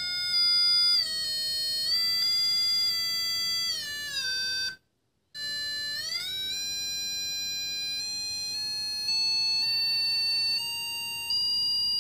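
MS6818 cable locator receiver sounding its continuous electronic signal tone, its pitch moving in small steps with the received generator signal. It drops, cuts out briefly about five seconds in, then climbs steadily toward the end: a rising tone means the receiver is closing in on the wire.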